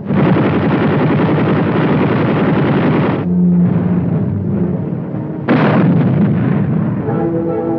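Battle sound effects of artillery fire and explosions. A dense run of blasts starts abruptly and cuts off about three seconds in, and a second sudden blast about five and a half seconds in dies away. Orchestral music comes in near the end.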